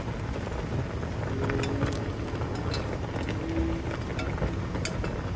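Chicken wings simmering in liquid in a ceramic pot over a gas flame, a steady bubbling hiss. A few light clicks come from chopsticks turning the wings against the pot.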